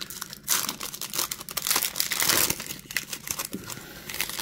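Foil wrapper of a 2023 Topps Series 1 baseball card pack being torn open and crinkled in the hands, a dense crackling that is loudest a little after halfway.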